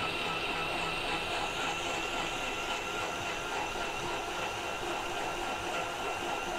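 Countertop blender motor running steadily at speed, puréeing hot cooked onions and water into a smooth potage; a constant whine over the churning of the liquid.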